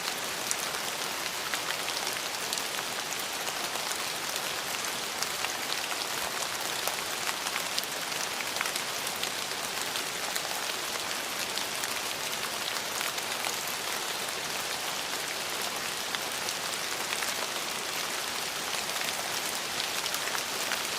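Steady rain falling on a surface: an even hiss thick with many small drop ticks, unchanging throughout.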